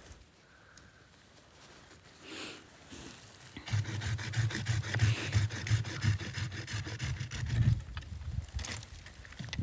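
Rapid, rhythmic scraping that starts about four seconds in and runs for about four seconds, then returns briefly near the end.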